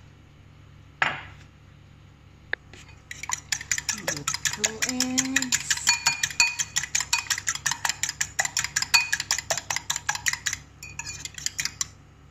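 Eggs being beaten in a bowl with a metal utensil: rapid clicking and tapping against the bowl for several seconds, thinning out near the end. A single sharp knock about a second in.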